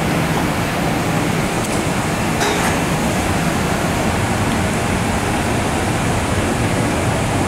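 Steady noise of a Vienna U-Bahn train standing at an underground platform, its on-board equipment running with a low hum beneath.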